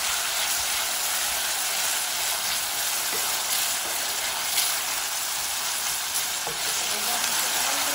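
Chopped onion sizzling steadily as it fries in hot oil in a steel pan, with light scrapes of a wooden spoon stirring it now and then.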